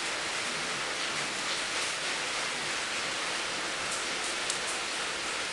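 Steady, even hiss, with a few faint ticks and scuffles from puppies wrestling in a fabric dog bed, most noticeable near the end.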